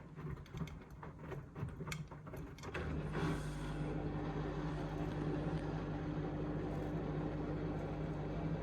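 Indesit IMA862MYTIMEUK washing machine during an intermediate spin on its Mixed programme: clicking and rattling for the first three seconds, then a steady motor hum as the drum spins.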